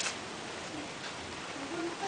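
Steady background hiss, with a short sharp sound right at the start and a faint voice near the end.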